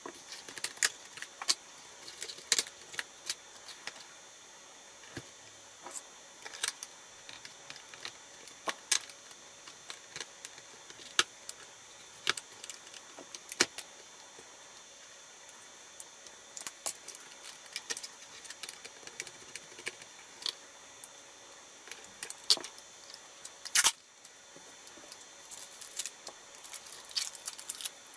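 Irregular small clicks, taps and clacks of a screwdriver and fingers on a laptop's plastic underside as screws are undone and the wireless card and small parts are handled, with one louder clack near the end.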